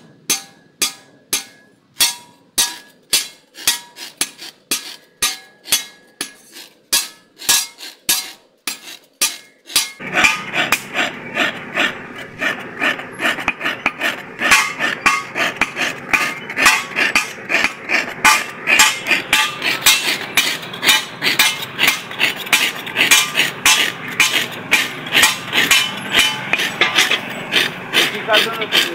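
A hammer strikes a chaff-cutter blade on an anvil, sharp ringing blows about two a second. About ten seconds in, this gives way to a hand file rasping along the edge of the curved blade in quick, repeated strokes as it is sharpened.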